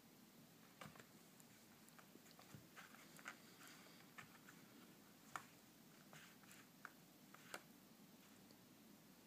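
Near silence with faint, scattered small taps and scuffs, about seven in all, as a four-week-old kitten paws at, climbs over and mouths a pair of foam Crocs clogs.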